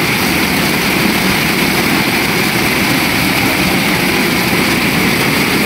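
Heavy rain pouring down onto flooded ground, a loud, even rush that does not let up.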